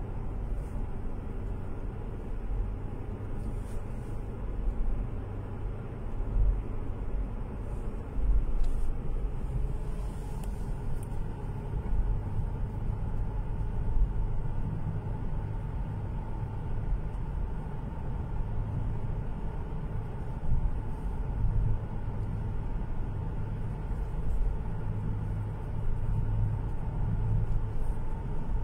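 Car driving at road speed, heard from inside the cabin: a steady low rumble of engine and tyre noise that swells a little now and then.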